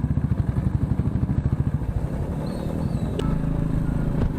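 Motorcycle engine running at low road speed, with a fast pulsing beat for the first two seconds that then evens out. Two faint clicks sound near the end.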